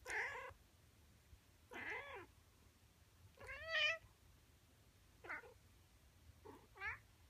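Male Siamese cat meowing five times, about one and a half to two seconds apart. The third meow, a little over three seconds in, is the longest and loudest, and the last two are short.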